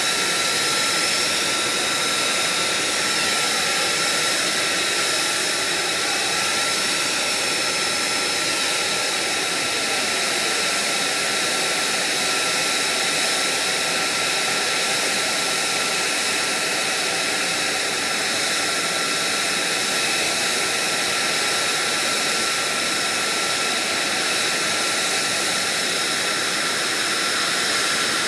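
F-35's Pratt & Whitney F135 turbofan idling on the ground: a steady rushing noise with several high whining tones held over it.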